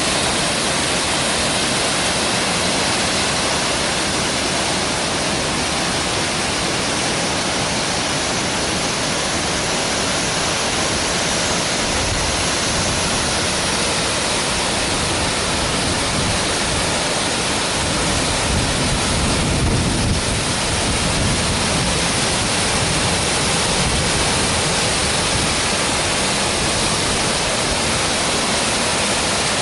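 Waterfall pouring: a loud, steady rush of falling water, with a deeper rumble swelling for a while in the middle.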